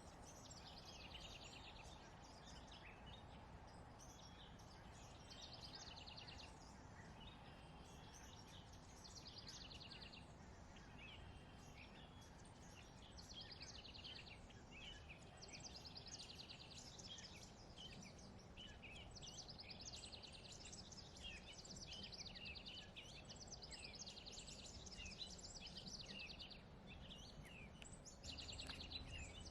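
Songbirds singing faintly: repeated short phrases and fast trills, one after another, over a steady low background rumble.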